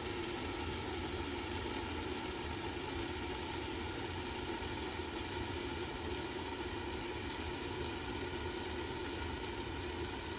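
Steady hiss and hum of bitter melon and tomato cooking in a lidded pan on an electric stove, with no breaks or changes.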